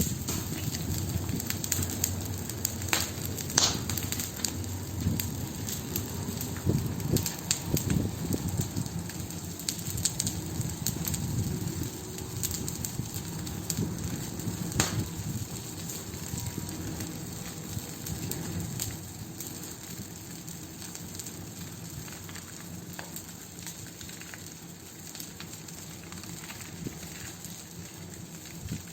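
Wood fire crackling, with sharp snaps and pops scattered over a steady low rushing noise; it grows somewhat quieter and the snaps sparser in the second half.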